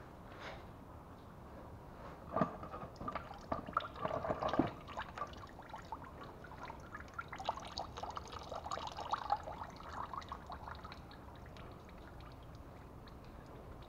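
Engine oil trickling and dripping from a spin-on oil filter that has just been broken loose and is being unscrewed. Scattered short clicks and knocks come in two clusters, a couple of seconds in and again around the middle, then it quietens.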